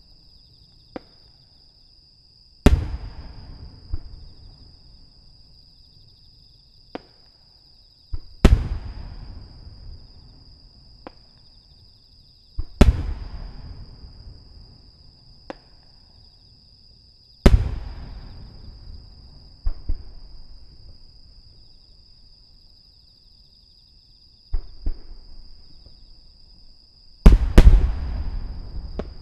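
Aerial firework shells bursting: five heavy booms a few seconds apart, each trailing off in a long rumbling echo, with lighter single cracks in between and a quick cluster of bursts near the end.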